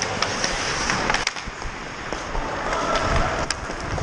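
Ice hockey skate blades scraping and carving on the ice, with several sharp clicks of sticks striking the puck and the ice.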